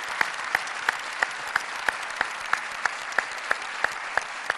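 Hall audience applauding, with one person's louder claps standing out in a steady rhythm of about three a second over the mass of clapping.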